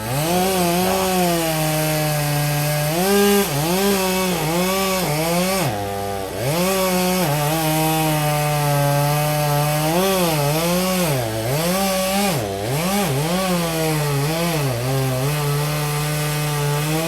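Gas chainsaw cutting into a tree. Its engine pitch dips again and again as the chain loads up in the wood, then climbs back between dips.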